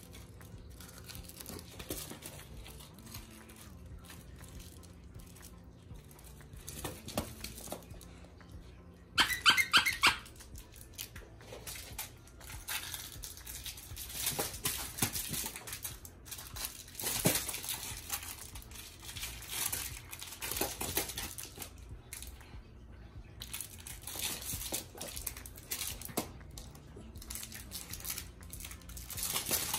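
A small dog playing with plush squeaky toys: a toy's squeaker squeaks in a quick loud run about nine seconds in. Otherwise there is scattered rustling and crinkling as the toys are mouthed and tossed.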